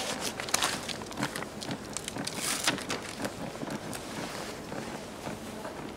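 Handling noise of defibrillator pads being peeled and pressed onto a CPR training manikin's chest: crinkling of the pad backing and rustling of clothing, with scattered light clicks and taps.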